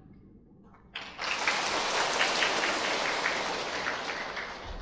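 Large audience applauding. The clapping starts abruptly about a second in and dies away near the end.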